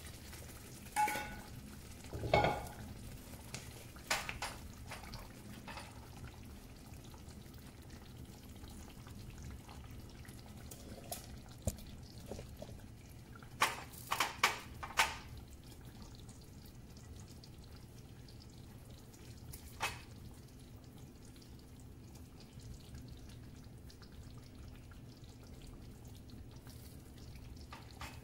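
Kitchen handling sounds: a ladle stirring tomato sauce in a cast-iron skillet, then scattered clinks and taps of utensils on cookware, the loudest about two seconds in and a quick cluster about halfway through, over a low steady hum.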